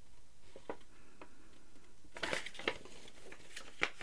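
Folded paper instruction leaflet being handled and leafed through: paper rustling and crinkling in short scattered strokes, sparse at first and busier from about halfway through.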